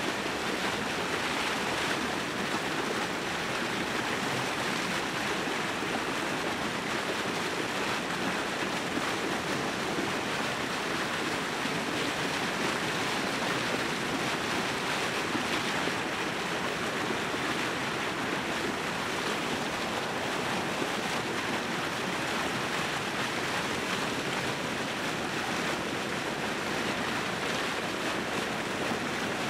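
Steady churning and splashing of water surging up against the edge of the ice, an even, unbroken rushing sound.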